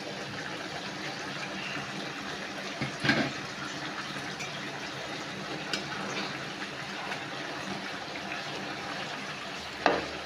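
Chicken ungkep, chicken braising in spiced sauce, bubbling at a steady simmer in a pan. A short knock about three seconds in, and another near the end as a metal spoon stirs the pieces.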